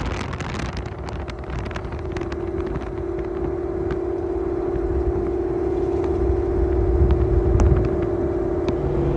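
Ford Mustang GT's 5.0 V8, breathing through long-tube headers and a Corsa Xtreme cat-back exhaust, running at a steady cruising engine speed. It makes an even exhaust drone that slowly grows louder, with a few sharp crackles near the start.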